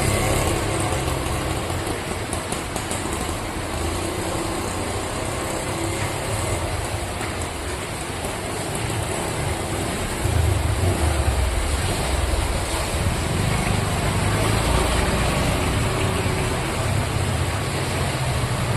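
Steady road traffic noise: vehicle engines rumbling along with a broad hiss, the rumble growing louder about ten seconds in as vehicles come closer.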